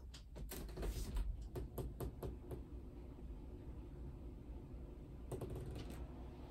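A quick series of light clicks and knocks over the first couple of seconds, then a short cluster of clicks about five seconds in as the bedroom door is opened.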